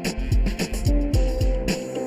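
Background music with a steady drum beat: deep kick drum thuds and sharp cymbal ticks over held notes.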